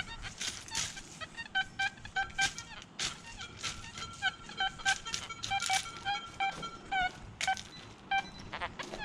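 Metal detector sounding many short target beeps at changing pitches as the coil is swept, with a higher held tone for a couple of seconds near the middle, over brief scraping and crunching sweeps across the ground.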